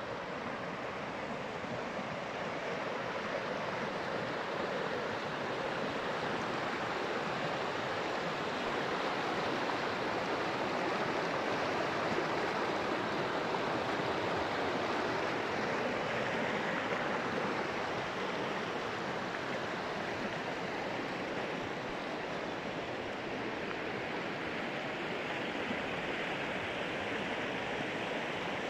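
Steady rushing of a stream's flowing water, an even noise that swells a little midway.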